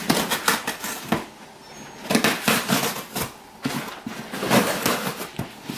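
Scissors cutting and scraping along the packing tape of a cardboard box: a run of crackly, scratchy clicks that stops twice, briefly, then picks up again.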